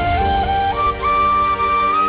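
Background music: a flute melody stepping between notes, then holding a higher note, over sustained chords.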